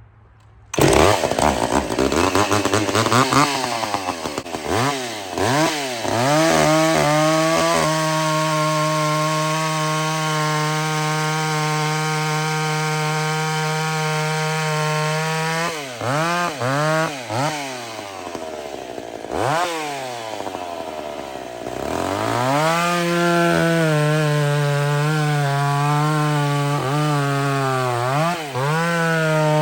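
A roughly 50-year-old two-stroke chainsaw engine starts suddenly and is blipped up and down. It then runs at a steady high speed, drops back and wavers lower about two-thirds of the way through, and revs back up to a steady high speed near the end.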